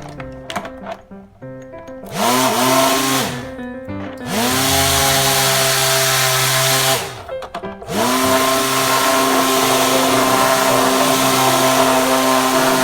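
Small electric motor of a homemade toy boat, switched on three times: each time it spins up with a rising whine, runs steadily at high speed, and winds down in pitch when cut off. The last run is the longest, about five seconds.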